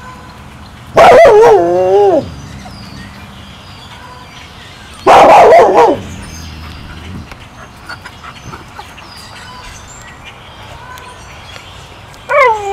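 Wolves calling for their food: two loud, short, harsh-edged howl-barks with wavering, falling pitch, about a second in and about five seconds in. A sustained wavering howl begins near the end.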